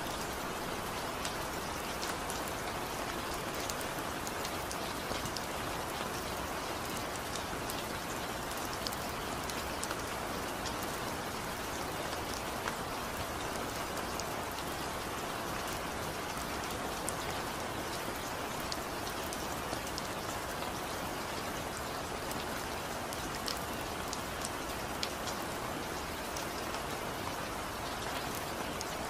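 Steady rain falling, an even hiss with many separate drops ticking on a surface.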